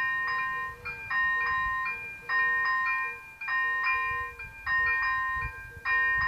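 Czech railway level crossing's electronic warning bell sounding: a repeating multi-tone chime that restarts about every 1.2 seconds while the red lights flash, signalling that a train is approaching.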